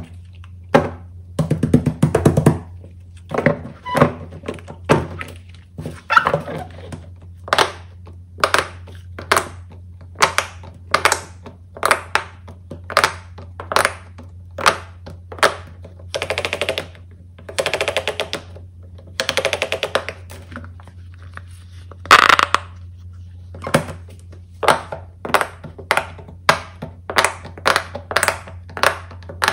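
Silicone pop-it bubbles pressed one after another by fingers, each giving a sharp pop, at roughly one or two a second with a few quick runs of pops near the middle.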